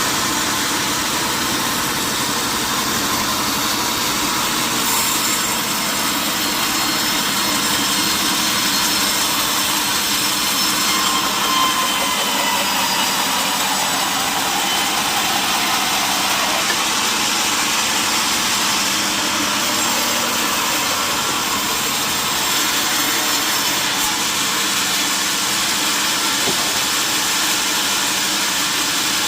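Sawmill machinery running steadily, with a saw cutting through a mahogany log.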